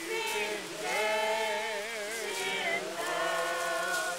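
Voices singing slowly, holding long notes about a second each, some wavering in pitch.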